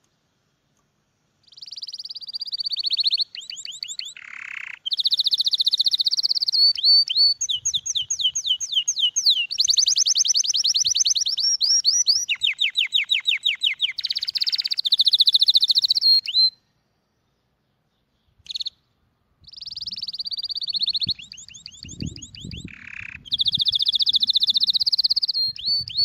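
A songbird singing: long phrases of fast, high trills and chirps, starting about a second and a half in, with a silent break of a few seconds past the middle.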